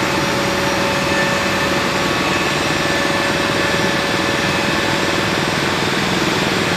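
Steady engine drone of flight-line machinery running at an even speed, with several constant whining tones over a noisy rumble.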